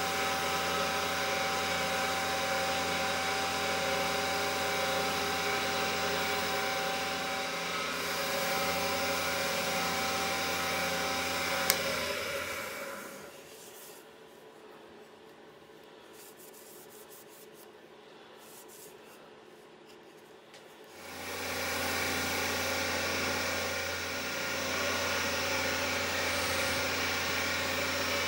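Wood lathe running steadily with a hum and whine while a cloth is rubbed against the spinning turned wooden handle to polish it. A sharp click comes about twelve seconds in, then the sound fades to a low level for about eight seconds and comes back at about 21 seconds.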